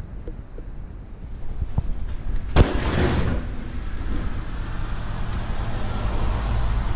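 A sharp bang about two and a half seconds in, then a steady low rumble.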